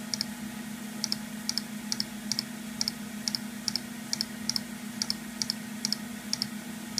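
Mouse button clicked over and over, about two clicks a second, each a quick press-and-release double click, stepping the clock up in a Macintosh SE's Control Panel. A steady low hum from the running computer sits underneath.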